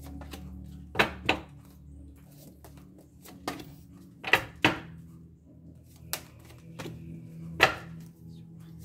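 Sharp taps of a deck of tarot cards knocked on a glass tabletop while being shuffled and squared, about six taps, two of them in quick pairs.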